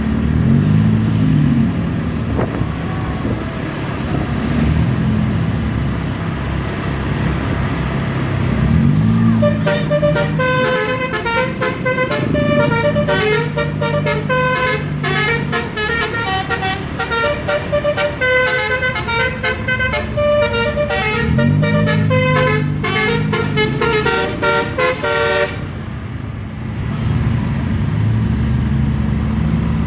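An Eti Trans bus's telolet basuri air horn plays a fast multi-note melody from about ten seconds in, for about fifteen seconds, then cuts off suddenly. Engine revs rise and fall before, under and after the horn.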